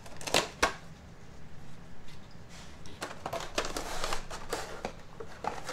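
Packaging being handled and opened: irregular rustling with sharp clicks and taps, a few louder ones within the first second and a busier stretch about three to four seconds in.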